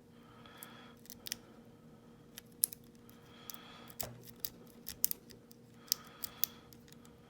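Lock pick rake scraping in and out of a brass five-pin padlock's keyway, with irregular sharp metallic clicks of the pins and tension tool; the scraping comes in three short strokes.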